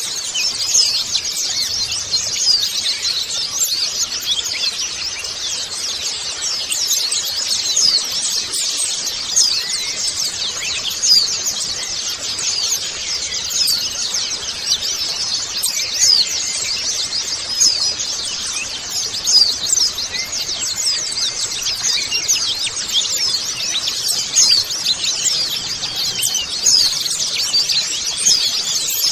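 A colony of white-eyes (pleci) twittering together: an unbroken chorus of many high, thin, overlapping chirps.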